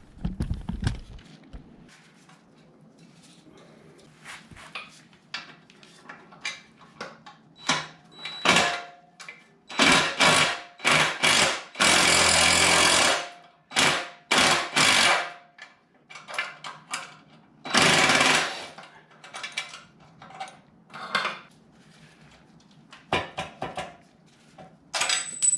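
Impact wrench hammering in a series of short bursts, with one longer run of over a second and another near the end, loosening a motorcycle's rear shock mount bolt.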